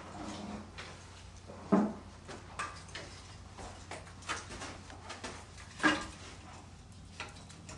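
Split beech logs knocking and clunking as they are handled and fed into a wood-fired brick bread oven: a few sharp knocks, the loudest about two seconds in and again near six seconds, with lighter clicks between.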